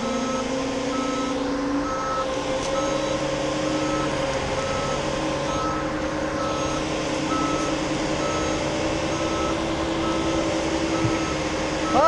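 Bulldozer's backup alarm beeping steadily, about three beeps every two seconds, over the steady drone of its diesel engine, which rises a little in pitch about a second in.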